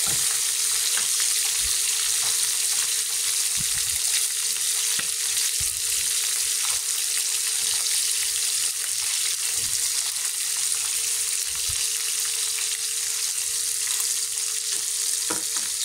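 Whole small cá chốt trâu catfish frying in hot oil in a small pan: a steady, dense sizzle. There are scattered light taps as chopsticks turn the fish against the pan.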